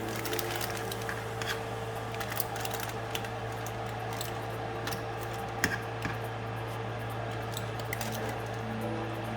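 Scattered light clicks and scrapes of utensils and foil as baked salmon is served from a foil cooking pouch, with one sharper clink a little past halfway, over a steady low hum.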